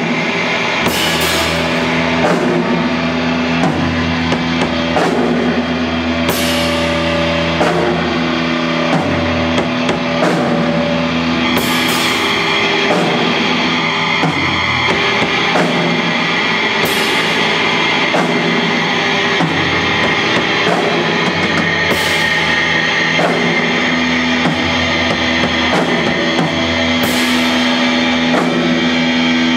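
Live drum kit played loud over sustained droning electronic tones from a pedal-and-mixer rig through an amplifier, with a cymbal crash about every five seconds.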